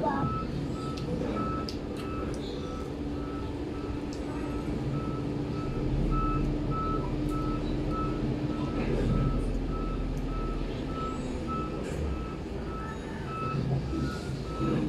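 A reversing alarm beeping over and over at an even pace, over a steady low hum.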